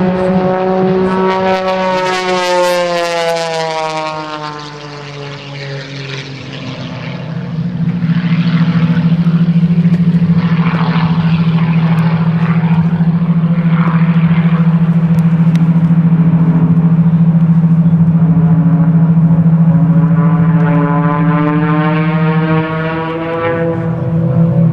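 Modified Pitts biplane's piston engine and propeller during an aerobatic routine. The engine note drops in pitch and fades over the first few seconds. It comes back strong at about seven seconds and runs as a steady, loud buzzing drone, easing briefly near the end.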